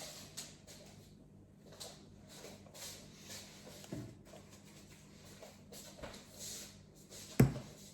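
Light rustling and small knocks of items being handled on a work bench, with one solid thump about seven seconds in, like something being set down.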